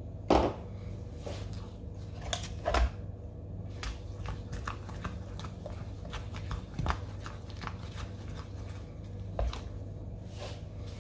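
Scattered knocks, clicks and scrapes of containers and utensils being handled while the scrub is worked. A sharp knock comes just after the start, with others near three, seven and nine seconds, over a steady low hum.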